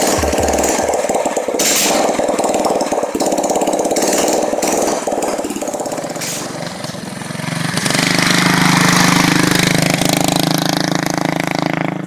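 Small single-cylinder engine of a motorized chopper bicycle running, easing off about seven seconds in, then revving up again.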